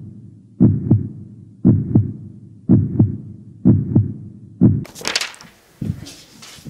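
Heartbeat sound effect: paired lub-dub thumps about once a second, five times. Near the end it gives way to a burst of noisy hiss and rustle.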